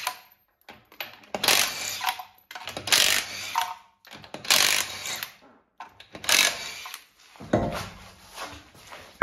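Cordless impact wrench with a 21 mm socket, hammering off lug nuts in four short bursts of about a second each, with pauses between. Near the end comes a heavier, deeper sound as the wheel is pulled off the hub.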